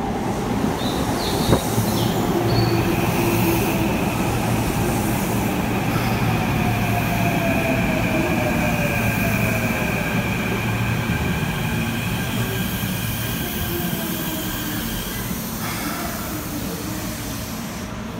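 Keikyu 1500 series electric train with a Mitsubishi IGBT VVVF inverter arriving and braking to a stop: the inverter whines with steady high tones and a tone that falls in pitch as the train slows, over the rumble of wheels on rail. The whine cuts out about 16 seconds in as the train comes to rest.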